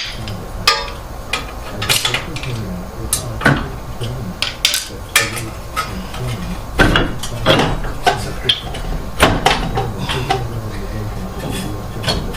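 Hand tools and steel parts clinking and clanking in irregular sharp knocks during car strut replacement work.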